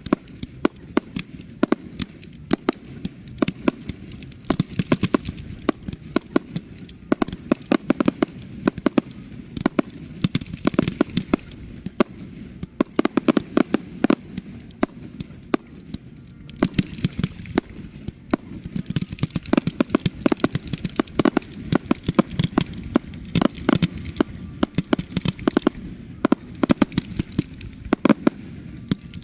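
Fireworks display firing: a dense, continuous run of sharp bangs and crackles, many reports a second, over a low rumble, thinning briefly twice before building again.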